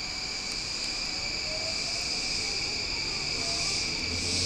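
E235-series electric train pulling out of the station. Its running noise builds gently, with faint motor tones rising in pitch over a steady high whine.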